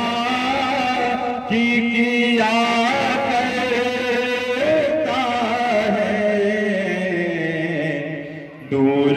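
A single voice chanting a melody in long, wavering held notes. It fades briefly near the end, then starts again.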